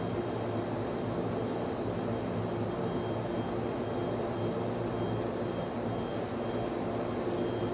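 Server room equipment and network switch cooling fans running: a steady drone with a low hum and a faint high whine.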